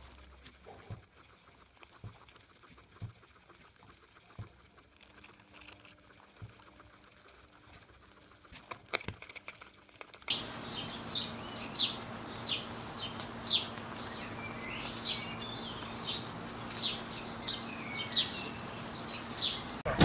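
Guinea pigs chewing grass, faint crunching clicks at first. About ten seconds in the sound gets louder, with a low steady hum and a string of short, high chirps.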